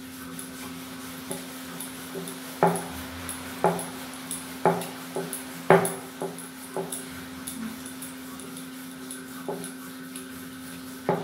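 Rolling pin rolling roti dough on a steel plate, knocking against the metal in a run of sharp, irregular clacks that are thickest a few seconds in, with one more near the end. A steady low hum runs underneath.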